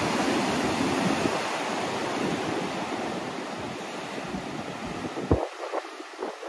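Ocean surf surging and breaking against the foot of sea cliffs, heard from above as a steady rush of churning water that slowly eases, with wind on the microphone. Near the end come a few short thumps.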